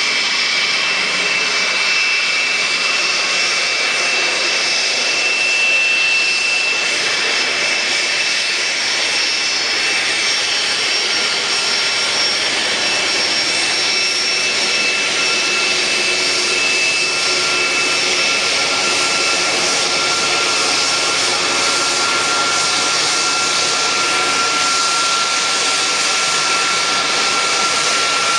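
Boeing 747-400's four Rolls-Royce RB211 turbofan engines at taxi power as the jet rolls past: a steady rushing hiss with a high whine, and a lower whine that grows stronger about halfway through.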